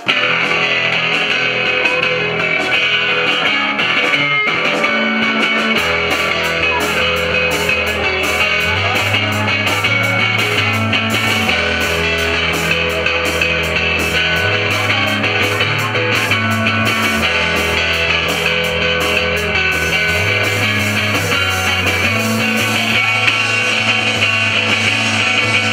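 Live rock band playing: electric guitar over a drum kit with steady cymbal strokes, with low bass notes coming in about six seconds in.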